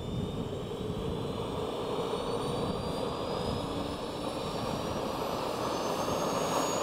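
Small turbojet engine of a subscale research aircraft spooling up: a high whine rising slowly and steadily in pitch over a steady rushing jet noise.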